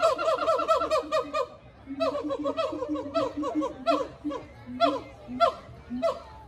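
Siamang calling: fast runs of short, pitched whooping notes, breaking into a few spaced single calls near the end.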